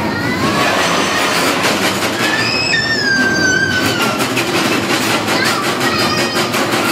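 Bumper car ride running: a steady rolling din of the cars moving over the floor, with frequent knocks and rattles and several high squeals, the longest one falling in pitch about three seconds in.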